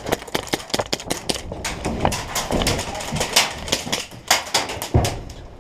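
Many sharp, irregular clicks and knocks as airsoft players rush in, with faint voices under them.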